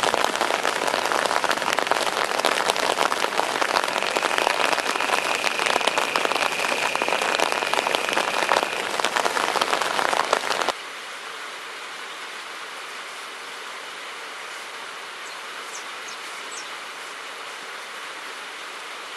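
Rainwater pouring and splashing down rocks: a loud, dense rush full of fine crackle, with a steady high tone for a few seconds in the middle. About eleven seconds in it cuts abruptly to a quieter, even rush of water, with a few faint high chirps.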